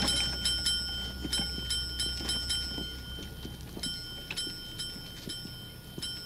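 A small tap bell (service bell) struck rapidly over and over, about three bright dings a second, each ringing on. The ringing breaks off for under a second midway, then starts again.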